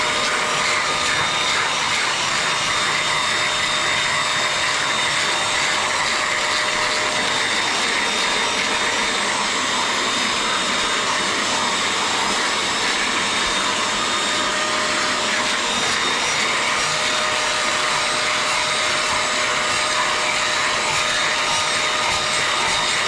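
Portable carpet and upholstery cleaning machine running steadily, a constant motor whine over a hiss.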